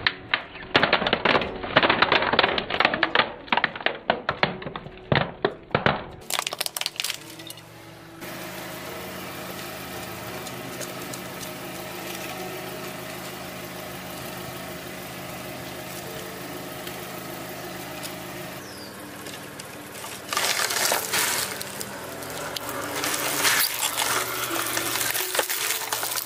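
A car tyre cracks and snaps a hard plastic toy in a rapid run of sharp cracks for about the first six seconds. A quieter stretch of steady held tones follows. From about twenty seconds in, plastic bottles filled with coloured slime crackle and burst under the tyre.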